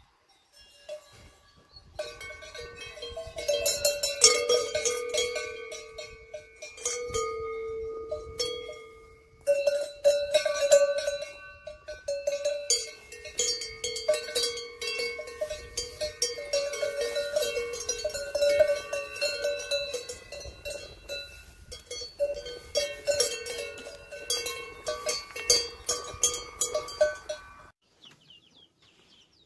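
Cowbells on grazing cows clanking irregularly. The clanking starts about two seconds in and cuts off suddenly near the end.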